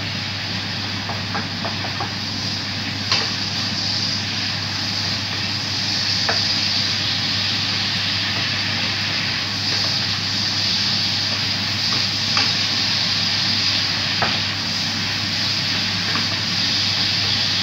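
Sauce with fish and bitter gourd sizzling and bubbling in a nonstick frying pan while a wooden spatula stirs it, over a steady low hum. The spatula knocks lightly against the pan a few times.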